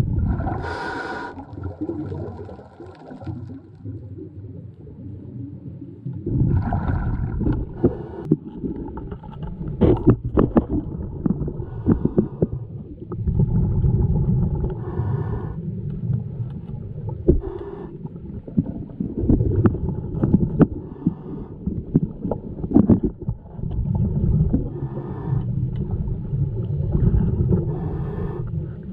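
Underwater sound through a camera housing: a scuba diver's regulator breathing, with surges of exhaled bubbles rumbling every few seconds and a hiss about a second in. Scattered clicks and knocks run through it.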